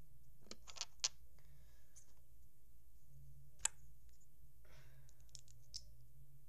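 Plastic LEGO bricks being handled and snapped together: a few sharp clicks about a second in, one louder snap in the middle, then a brief rustle and lighter clicks near the end.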